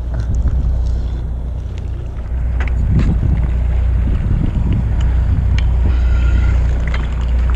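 Fishing boat's engine running at a steady low drone, with wind on the microphone and a few light clicks around the middle.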